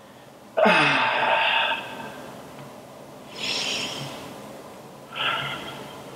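A man breathing heavily: a loud voiced exhale falling in pitch about half a second in, then two shorter, sharper breaths.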